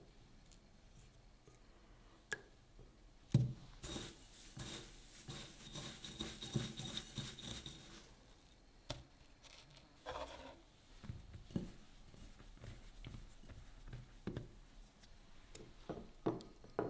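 Fingers pressing and turning a piece of food in a bowl of dry breadcrumbs: a gritty rustle lasting about four seconds. Before and after it come light taps and clicks of hands against the bowls, with one sharper knock just before the rustle.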